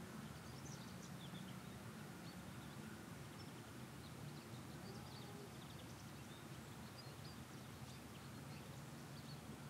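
Faint outdoor ambience: a low steady rumble with scattered short bird chirps.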